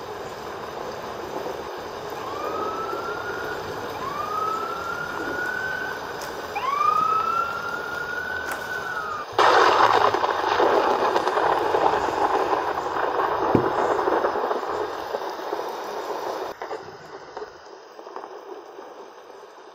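Thunder from a nearby lightning strike: a sudden loud crack about nine seconds in that rumbles on for several seconds and fades. Before it, three rising wailing tones sound over a steady rushing background.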